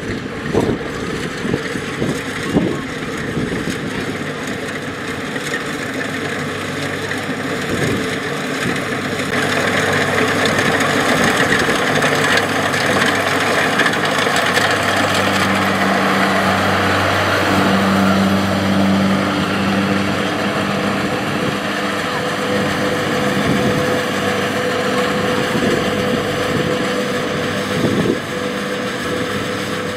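Rice combine harvester running as it cuts and threshes rice, a steady engine and threshing drone that swells louder through the middle. A few sharp knocks near the start and near the end.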